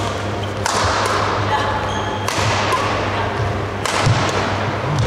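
Badminton rally: three sharp racket hits on the shuttlecock about a second and a half apart, each ringing on in the large hall. Brief squeaks of shoes on the court floor come between them.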